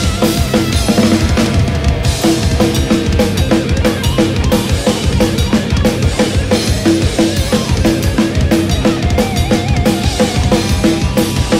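Acoustic drum kit with Zildjian cymbals played hard and fast along with the recorded rock song: busy bass drum and snare hits under crashing cymbals, with the band's pitched guitar and melody parts running underneath.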